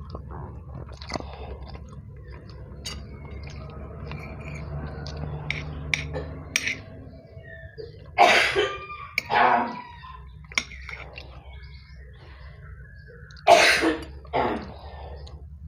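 A person coughing, two coughs at a time: one pair about eight seconds in and another about thirteen seconds in, with small clicks between them.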